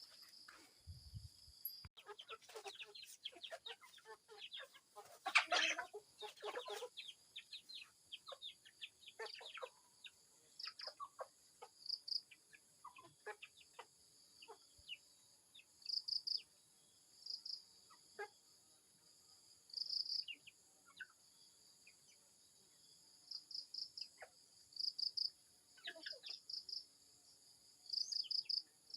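Chickens clucking in short scattered calls, busiest in the first few seconds, with high chirps repeating in short pulsed bursts through the rest.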